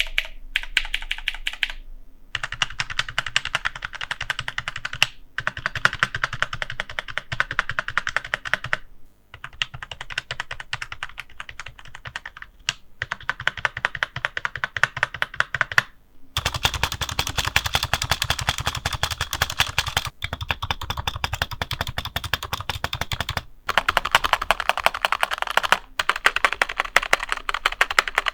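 Rexus K9E membrane keyboard being typed on fast, dense key clicks in runs of a few seconds with short pauses between. Its key housings, keycap sides and spacebar stabilizer wire have been lubed with Krytox 205g0 to make the keys smoother and quieter.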